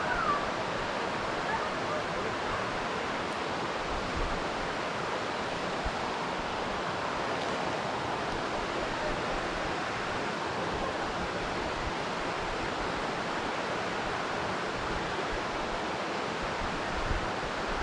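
Steady rushing of a mountain creek's flowing water, an even hiss that does not change.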